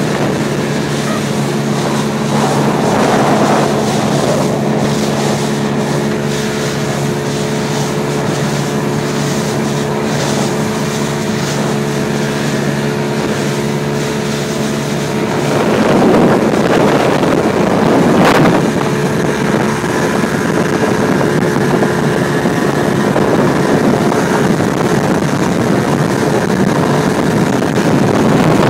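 A fishing boat's motor running steadily under way, with wind buffeting the microphone. About halfway through, the even engine note gives way to a louder rushing of wind and water.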